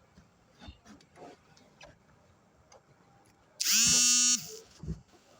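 A mobile phone's vibrate motor buzzing on a hard surface for an incoming call: one buzz of under a second, a little over halfway in, that rises briefly in pitch as the motor spins up. Faint clicks and knocks come before it.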